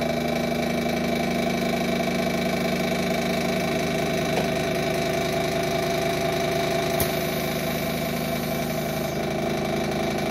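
The built-in pump of a Regen-i RG-260 smartphone press running steadily as a motor hum, building up pressure in the machine. A single sharp click comes about seven seconds in.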